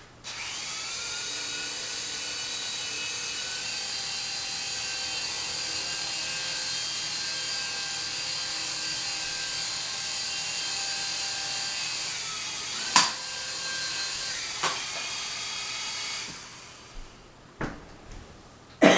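A small remote-controlled levitating sphere's tiny propellers spinning with a high-pitched whine, its pitch shifting a little with the throttle. There are two sharp knocks about 13 and 15 seconds in, and the whine cuts off about 16 seconds in, followed by a few light taps.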